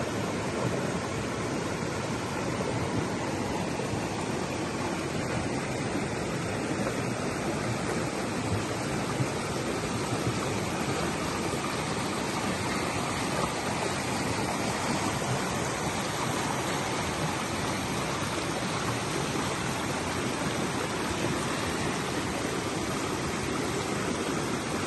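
River water flowing steadily over its bed, an even unbroken wash of water sound.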